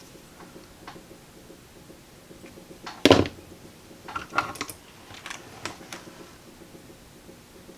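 Scattered small clicks and taps of hand tools and wire being handled while leads are looped and readied for soldering. The loudest click comes about three seconds in, followed by clusters of lighter ticks.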